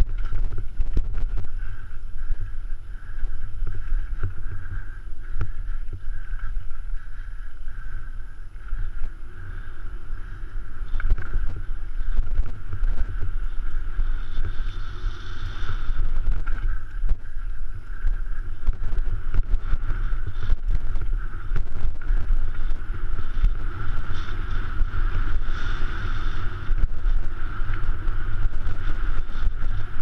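Wind rumbling on a handlebar-mounted action camera as a YT Capra full-suspension mountain bike runs fast down a dirt trail, the bike rattling and knocking over roots and bumps. A steady high hum runs under it throughout.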